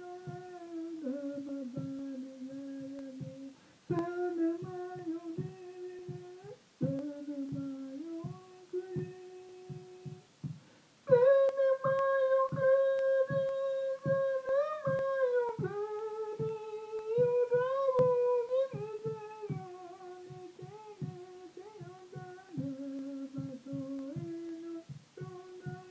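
A voice humming an icaro, the wordless-sounding healing chant of Peruvian ayahuasca ceremonies, in long held notes that step up and down with short pauses between phrases. It grows louder and higher for a few seconds around the middle.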